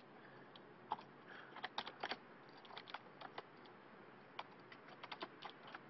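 Faint, irregular keystrokes on a computer keyboard as a terminal command is typed, some coming in quick little runs.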